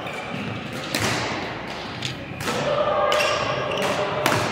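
Badminton rackets striking a shuttlecock in a rally: three sharp hits about a second and a half apart, each ringing on in a large hall. The last hit, near the end, is an overhead smash.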